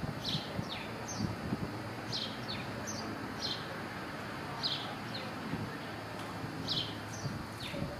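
Small songbirds chirping: short, high, downward-sliding chirps about once a second over a steady outdoor hiss, with a few faint low thumps.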